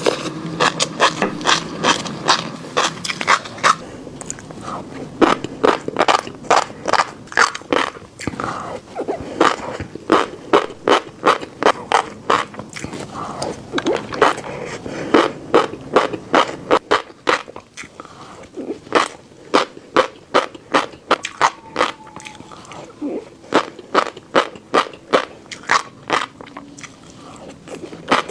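Fish roe being chewed close to the microphone: runs of crisp pops as the eggs burst, about four or five a second, broken by short pauses.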